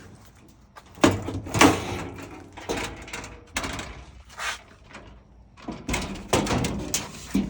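Dryer's sheet-metal front panel being handled and moved: irregular knocks, scrapes and rattles of thin metal, loudest about a second in and again around six to seven seconds in.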